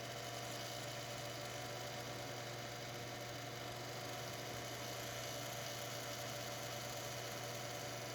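Computer running with a steady low hum and whir, a fainter higher tone held above it: the grinding noise this computer makes.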